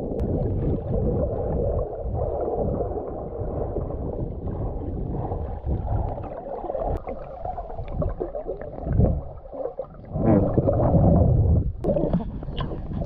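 Muffled underwater gurgling and rumbling of bubbles and moving water around a submerged action camera as a snorkeller swims down along an anchor chain. Near the end the camera breaks the surface and brighter splashing sounds come in.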